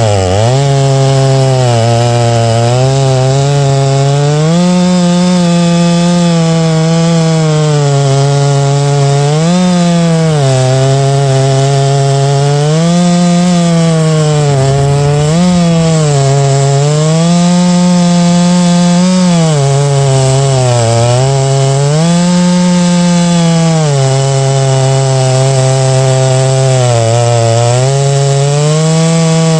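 Large two-stroke chainsaw ripping along an oak log in a chainsaw mill, running at high revs under load. Its engine pitch sags and recovers every few seconds as the cut loads it.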